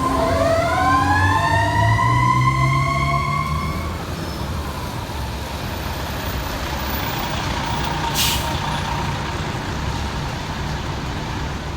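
Fire truck responding: its siren winds up, rising in pitch over the first four seconds, over the diesel engine's rumble, then carries on as a fainter steady tone. A short air-brake hiss comes about eight seconds in.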